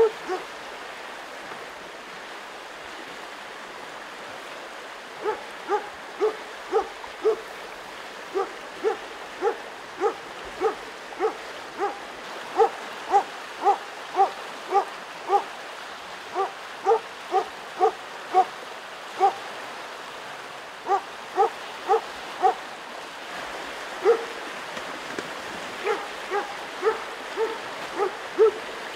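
Hunting dog barking steadily at moose, holding them at bay: runs of short, sharp barks about two a second, broken by brief pauses, over the steady rush of a river.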